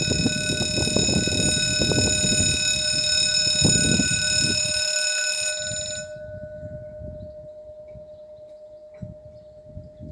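French level-crossing warning bell ringing steadily while the barriers come down, then cutting off suddenly about six seconds in once they are closed. A low rumble underneath fades away.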